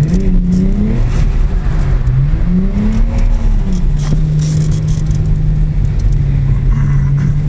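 Car engine heard from inside the cabin while drifting on a wet track. The revs rise and fall twice in the first four seconds, then hold steady.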